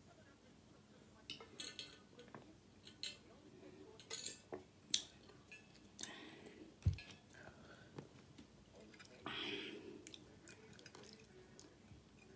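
Close-miked drinking from a Coldest Water insulated bottle: scattered swallows and mouth clicks, then one dull thump about seven seconds in as the bottle is set down on the table. Light utensil clicks on the plate follow.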